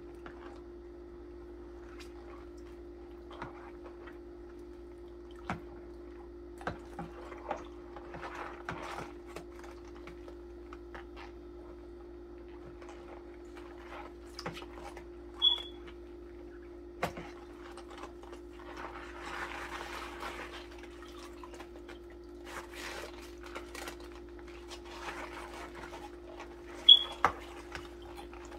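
Rubber-gloved hands scrubbing a stainless steel tissue forceps in a basin of soapy water: light splashing, rubbing and small clicks, over a steady low hum. Two short high squeaks, about halfway through and near the end, the second the loudest sound.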